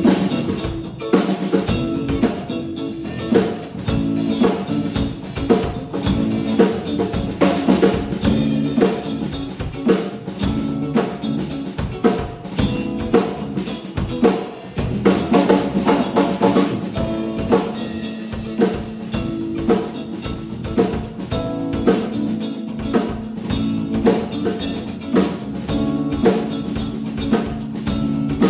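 A drum kit played continuously in a steady groove of bass drum, snare and rimshot hits, with sustained pitched tones of backing music underneath.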